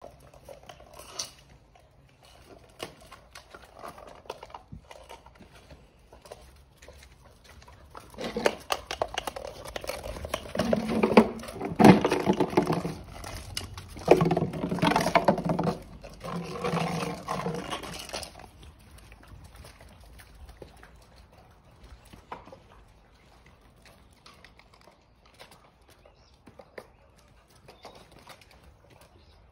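Weimaraner puppies playing, with a loud stretch of puppy growling and yapping from about eight seconds in until about eighteen seconds as they tussle together. Around it, quieter light tapping of paws on paving slabs.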